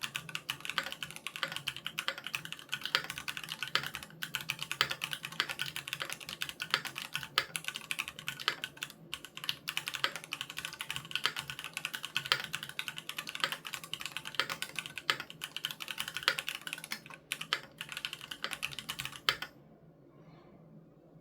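Fast, continuous typing on a Keychron Q3 mechanical keyboard with Gateron G Pro Red linear switches: a dense stream of key clicks that stops abruptly near the end.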